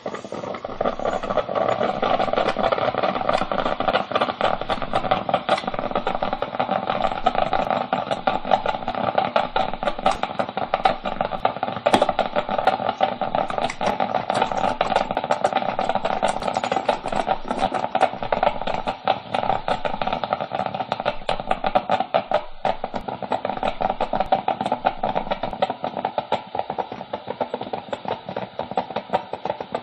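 Electric coffee maker brewing, a steady dense sputtering crackle of very fast clicks, with a brief break about 22 seconds in.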